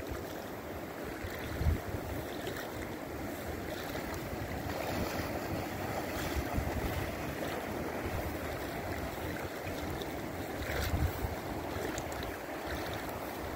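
Steady rush of river water flowing over a shallow riffle, with wind buffeting the microphone in a couple of low thumps.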